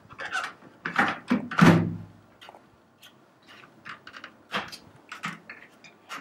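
A 12 V sealed lead-acid UPS battery knocking and scraping against the plastic battery bay of a desktop UPS as it is pushed into place. One heavy thud comes a little under two seconds in, then lighter knocks and clicks.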